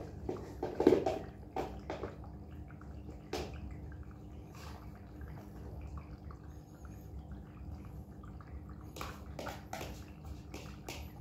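Canned cat food being spooned out into plastic food bowls: scattered clicks and scrapes of the spoon against can and bowl with soft wet squelches, a louder knock about a second in and a cluster of clicks near the end, over a steady low hum.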